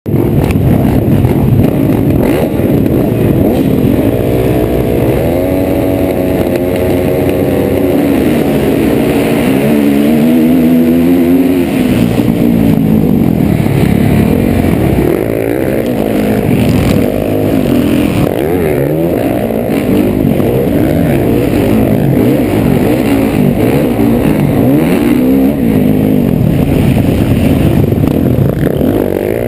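Motocross dirt bike engines racing, heard from a helmet camera: the rider's own engine is run hard, its pitch climbing and dropping again and again as the throttle is opened and shut, among other bikes close by.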